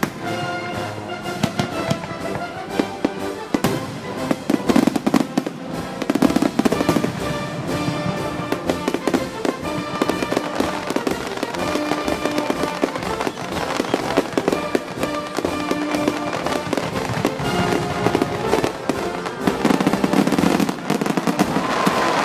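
Fireworks going off in quick succession, many sharp bangs and crackles, over music with long held notes.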